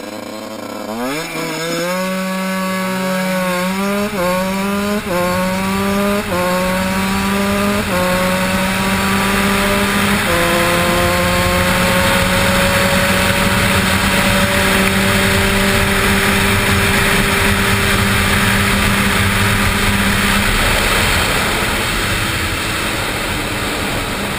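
Two-stroke motard motorcycle accelerating hard through the gears: the engine note climbs and drops back at each upshift, about five times in the first ten seconds. It then holds high revs under growing wind rush on the microphone, and eases off near the end as the throttle closes.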